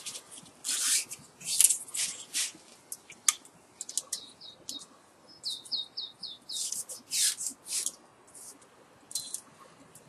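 A twelve-strands-in-hand bundle of copper magnet wire being worked into the slots of an electric motor stator by hand, making short scratchy scrapes and rustles against the slot insulation. About halfway through there is a quick run of five high squeaky chirps, each falling in pitch.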